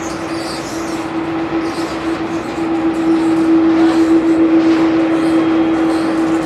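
Airbus A330-300 jet engines running at taxi idle: a steady drone with one constant tone through it, growing a little louder about halfway through.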